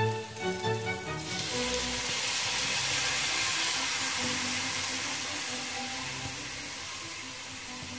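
Orange juice poured into a hot frying pan of fried chicken meatballs, hitting the hot oil and sizzling. The sizzle starts suddenly about a second in and slowly eases off.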